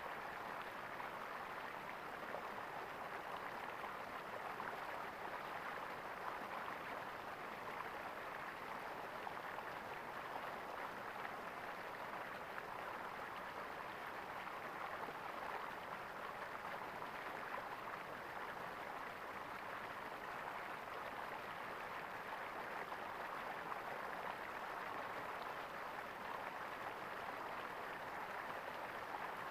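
Running water gurgling steadily in a stream, an even, unbroken rush.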